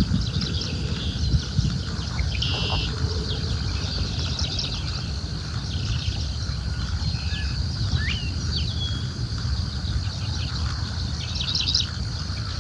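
Birds chirping and calling in the open air, with a short call repeating every few seconds, over a steady high tone and a low rumble.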